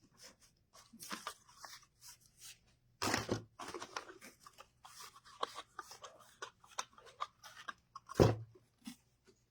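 Ribbon being handled, with crinkling and rustling and scattered small clicks. Two louder knocks come about three seconds in and about eight seconds in.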